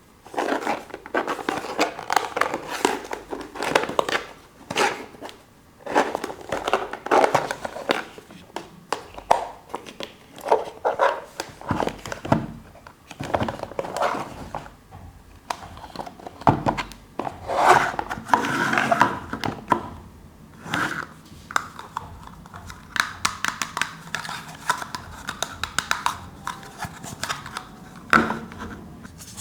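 Hands handling a small plastic toy and its packaging: irregular crinkling of plastic wrap mixed with many light clicks and taps of plastic pieces.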